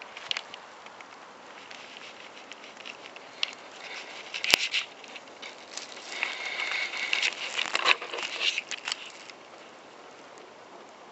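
Woven rush goza mat rustling and crackling with many dry clicks, densest about six to nine seconds in, then stopping. One sharp click about four and a half seconds in.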